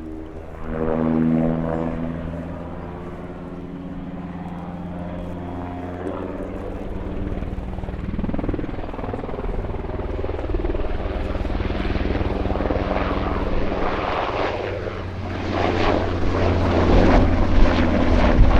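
NH-90 helicopter in display flight, its twin-turboshaft engines and rotors running. It starts as a steady pitched drone and gives way to a dense rotor chop that grows louder toward the end.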